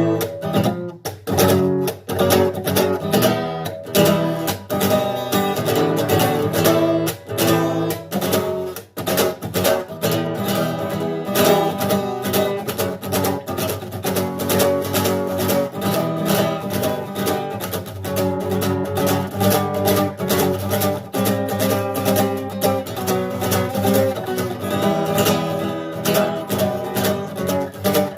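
Acoustic guitar playing a run of quick plucked and strummed notes.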